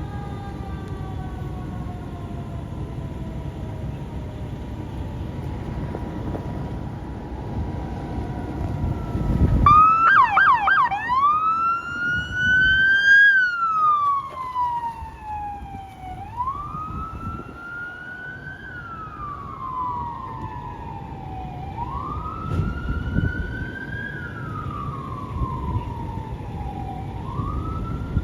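Fire apparatus sirens over a low vehicle rumble. At first a siren slowly falls in pitch. About ten seconds in, a louder siren starts with a quick warble, then wails up and down every five or six seconds.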